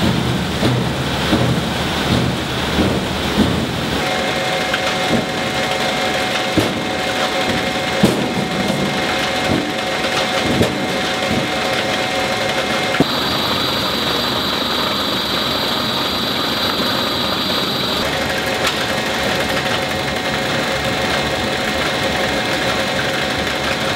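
Produce grading and packing line machinery running, with the steady hum and rattle of roller conveyors carrying fruit and a few sharp knocks in the first half. The pitch of the hum changes abruptly three times.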